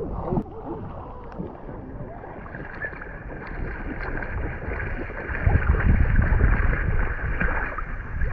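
River water lapping and splashing against an inner tube close to the microphone, with wind buffeting the microphone, strongest from about five and a half seconds in.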